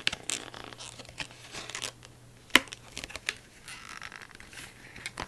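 Case packaging being cut and torn open by hand: crinkling and rustling with scattered sharp clicks, one louder than the rest about two and a half seconds in.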